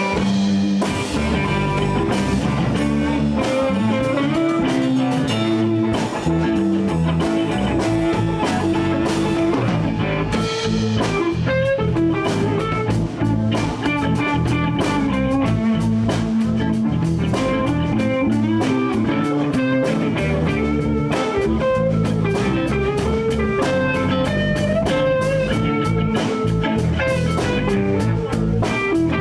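Live blues band playing an instrumental passage: electric guitars over bass and a drum kit keeping a steady beat.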